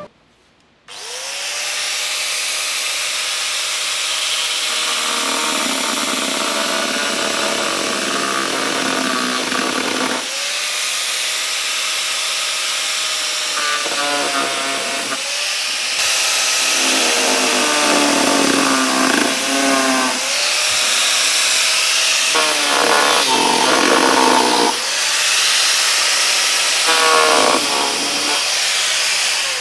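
Angle grinder with a thin cut-off disc cutting into the plastic-welded seam of a black plastic factory airbox. It gives a steady whine with a rough, ragged grinding over it as the disc bites. The motor spins up about a second in and again three more times.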